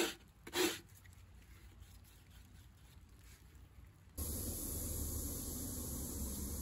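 Coarse 36-grit sanding belt on a wooden block rubbed across a wooden board: two quick rasping strokes in the first second. About four seconds in, a steady hiss with a low hum starts suddenly.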